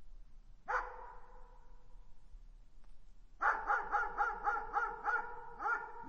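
A dog barking: a single bark that trails off with a ringing echo, then a quick run of about nine barks, roughly four a second.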